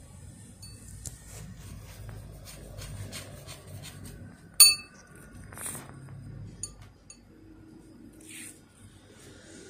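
A small brush tapping and stirring against a ceramic bowl: a run of light ticks, then one sharp ringing clink a little under five seconds in, followed by a few faint clicks.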